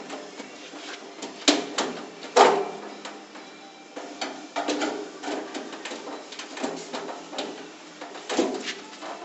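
Pry bar levering and scraping at the door edge of a steel van safety locker: irregular metal scrapes, creaks and knocks, the sharpest about one and a half and two and a half seconds in and again near the end. The locker door does not give.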